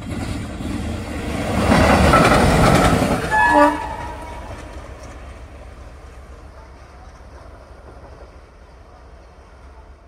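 A loud rushing noise swells for about two seconds. It ends in a short, pitched blast of a WDG3A ALCO diesel locomotive's air horn, after which only a low, fading rumble of the approaching locomotive remains.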